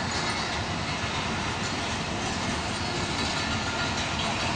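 Pakistan Express passenger train pulling out of the station, its coaches rolling by with a steady rumble and the click of wheels over rail joints.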